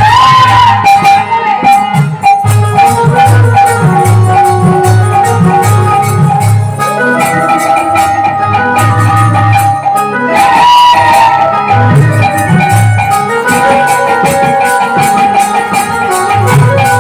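Kirtan devotional music played loud: a steady drum beat with dense jingling cymbal strokes under a held, sliding melody.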